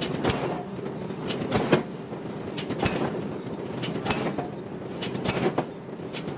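Heavy forging machinery at work on iron: irregular sharp metal clanks and knocks, several a second at times, over a steady mechanical din.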